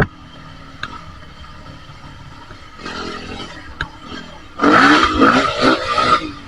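Off-road motorbike engine riding through soft sand, running low and then revving hard for about a second and a half near the end, with a sharp knock right at the start.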